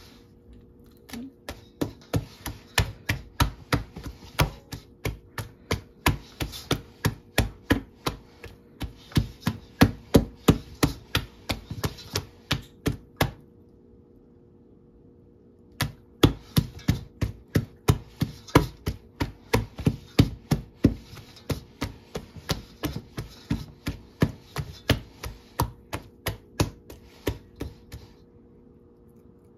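Knife chopping on a cutting board: quick, even strokes about three a second, in two long runs broken by a pause of about two and a half seconds.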